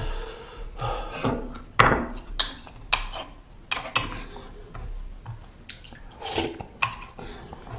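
Metal utensils clinking and scraping against a ttukbaegi earthenware pot while ramen is eaten: a series of sharp clicks and short scrapes, the loudest about two seconds in, with mouth and eating sounds between them.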